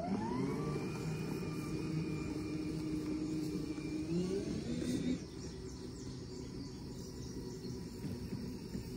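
Makita XML11CT1 36 V (18V×2) cordless lawn mower's motor spinning up with a rising whine, then running steadily. About five seconds in the whine shifts and drops to a quieter, lower hum.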